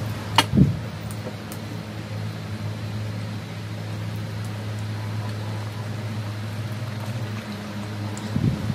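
Steady low mechanical hum, like a room fan running, with a sharp click and a low thump about half a second in and a few soft knocks near the end.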